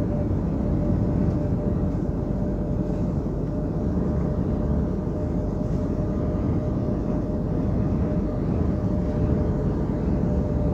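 Steady drone of a semi truck's engine and tyres heard from inside the cab at highway speed, a dense low rumble with a thin, constant whine running over it.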